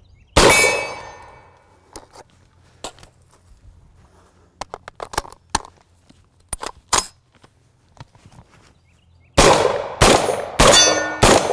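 Suppressed Genesis Arms Gen12 12-gauge semi-automatic shotgun firing: one shot about half a second in, then a rapid string of about four shots near the end, each followed by a metallic ringing tail. In between come faint clicks and rattles of the gun being handled.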